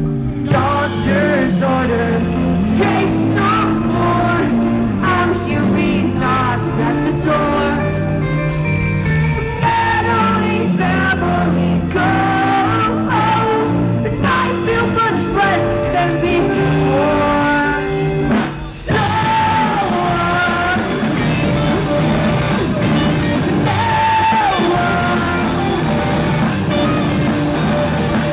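A live rock band plays electric guitars, bass guitar and drums, with a sung lead vocal from the drummer at his kit. The band drops out briefly about 18 seconds in, then comes back in at full strength.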